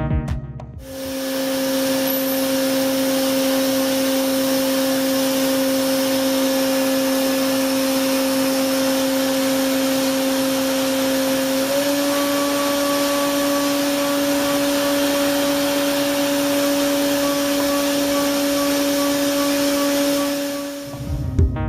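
CNC milling machine cutting C45 steel with an ISCAR Chatter Free D12 end mill at a 24 mm depth of cut: a steady cutting hiss with a steady spindle tone, which steps slightly higher in pitch about halfway through.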